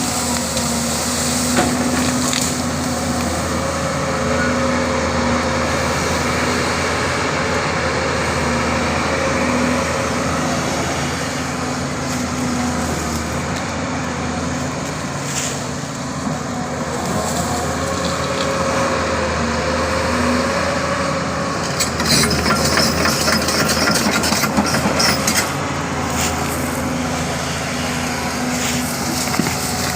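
Doosan 225 hydraulic excavator's diesel engine running steadily under load while it clears mango trees. About two-thirds of the way through, a few seconds of branches cracking and snapping.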